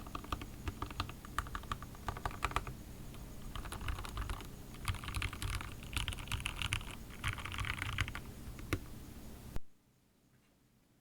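Typing on a Royal Kludge RK61 mechanical keyboard with Gateron Red linear switches lubed with Krytox 205g0: a fast, irregular run of key presses that stops suddenly about a second and a half before the end.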